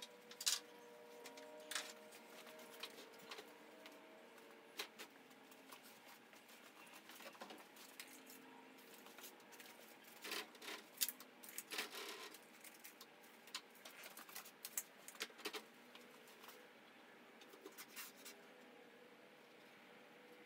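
Scattered light clicks, taps and knocks from hands and tools working on a portable table saw as it is positioned and fitted on a workbench, with a faint steady hum underneath. The taps bunch together about halfway through.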